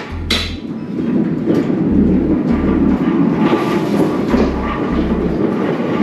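Empty manual hand pallet jack rolling over the trailer floor with a continuous rattle and clatter, with a couple of sharp clunks right at the start. A low double pulse repeats underneath about every two and a half seconds.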